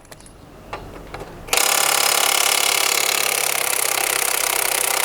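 Cordless electric drill running steadily as it backs out a screw, starting about a second and a half in after a few light clicks.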